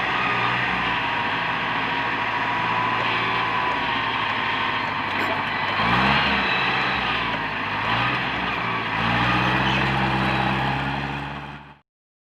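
Komatsu PC200 hydraulic excavator's diesel engine running under load, with a wavering high whine over it. It revs up briefly about six seconds in and again about eight seconds in, then cuts off suddenly near the end.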